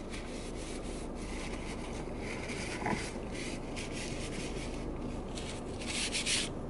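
Paper napkin rubbing on skin as an arm is wiped clean of spilled drink, with a few quick, louder rubbing strokes near the end. A steady hiss runs underneath.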